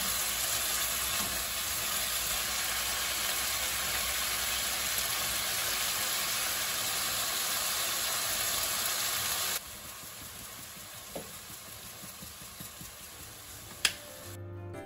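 Beef and eggplant sizzling in a hot nonstick wok as a wooden spatula stirs and turns them. The sizzle drops noticeably quieter about two-thirds of the way through, and a short click comes near the end.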